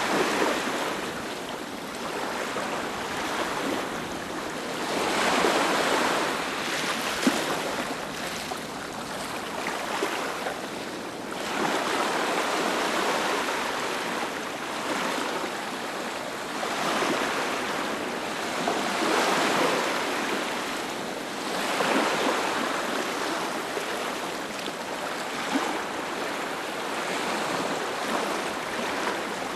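Sea waves breaking and washing up a beach: a continuous rush of surf that swells and eases every few seconds.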